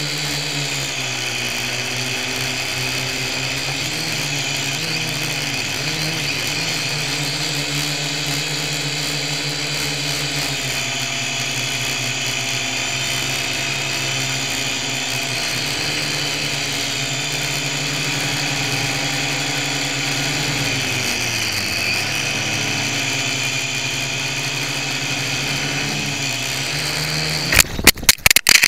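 Syma X1 quadcopter's small electric motors and propellers whining steadily, heard from the camera on board, the pitch dipping and rising a few times as the throttle changes. About a second before the end, several loud knocks as the quadcopter crashes and tumbles into the snow.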